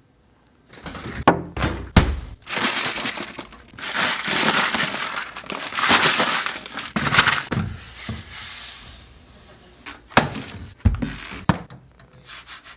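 Glass breaking in a series of sharp smashes and longer crashing, shattering stretches, with clinking fragments. A last cluster of sharp hits comes about ten to eleven seconds in.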